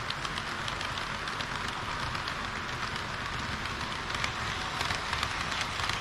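HO-gauge model trains running close by on sectional track: a steady whirring rush of wheels and motors, peppered with a light patter of small clicks.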